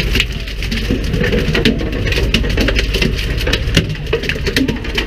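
A fishing boat's engine running steadily under wind, with sea spray hitting the boat and the camera in many sharp, irregular ticks.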